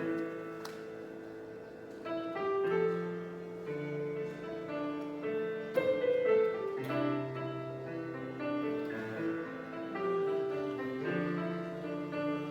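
Instrumental keyboard intro: slow, sustained piano-like chords, changing every second or two.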